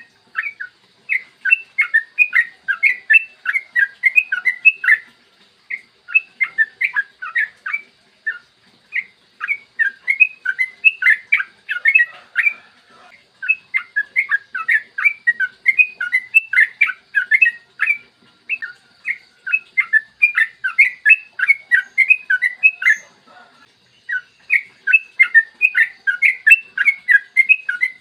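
Yellow-vented bulbul (trucukan) singing long runs of quick, bubbling chattering notes, many a second. The runs break off briefly a few times, about five, eight, twelve and twenty-three seconds in.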